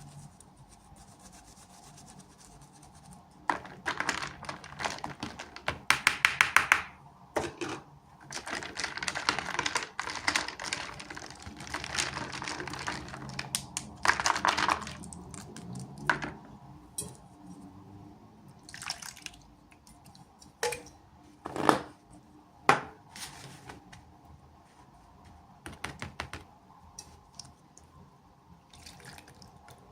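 Small toy packaging being opened and handled: scratching and rustling with many sharp clicks and taps, including a fast run of clicks and a few louder single taps later on.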